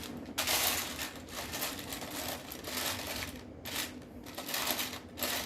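Loose plastic Lego pieces rattling and clinking in irregular bursts as a hand sifts through them, searching for a part.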